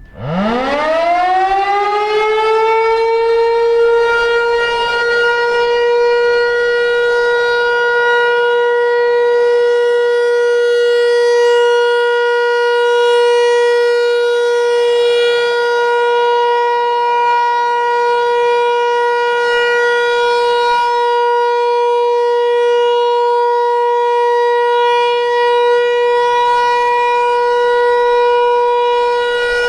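Federal Signal Equinox outdoor warning siren sounding its steady alert tone: it winds up from a low pitch over the first couple of seconds, then holds one loud, steady, rich tone.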